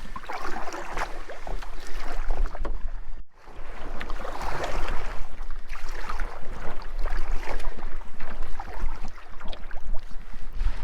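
Choppy water splashing against a solo canoe as it is paddled through waves, with wind rumbling on the microphone. The sound cuts out for a moment about three seconds in.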